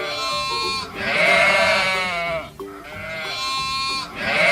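Sheep bleating several times, in long quavering calls that follow one after another, with the loudest about a second in and again near the end.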